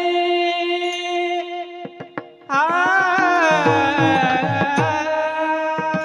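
Devotional kirtan music: a high male voice holds a long note, then after a short break starts a loud new phrase that bends down in pitch, over a steady held accompanying drone. Low pakhawaj drum strokes come in about halfway through.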